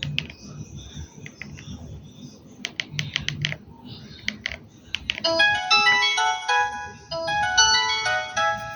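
Keypad buttons of a Samsung GT-E1270 phone clicking as they are pressed, then, about five seconds in, a polyphonic ringtone melody of short bright notes plays from the phone's speaker and stops near the end.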